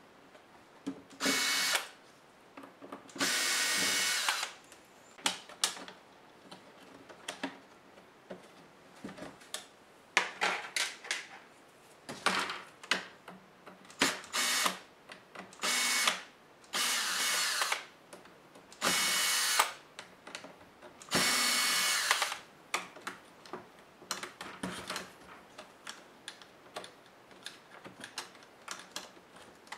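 Small electric screwdriver whirring in short bursts of about a second, over and over, driving the screws of a laptop, with small clicks and rattles of handling in between.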